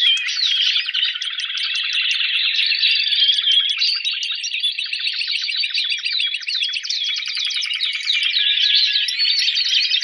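Spanish Timbrado canary singing a continuous competition song, rated 83 points, of fast trills, runs of rapidly repeated notes and short rising and falling whistles.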